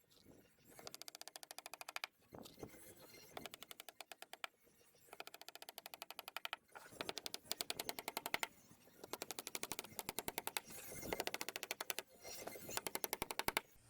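Rapid, even mechanical tapping in short bursts of about a second each, about ten bursts with brief pauses between, as ceiling boards are fastened in place.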